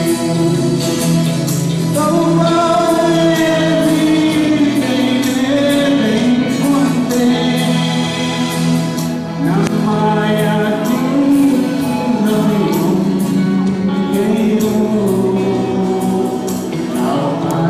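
A man singing a song into a microphone over a recorded backing track with a steady beat, amplified through a PA.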